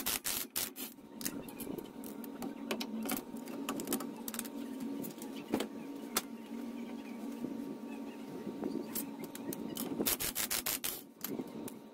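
A socket on the driveshaft flange bolts at the Dana 44 front axle's pinion being turned to unbolt the driveshaft: quick bursts of metallic clicking at the start and again about ten seconds in, with scattered single clicks between, over a steady hum.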